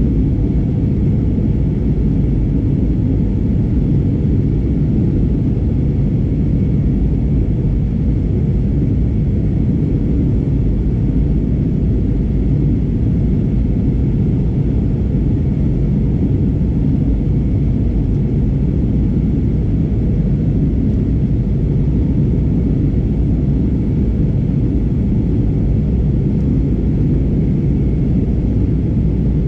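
Steady cabin rumble inside an Airbus A320neo in flight: engine and airflow noise heard at a window seat, even throughout, with a faint steady high tone above it.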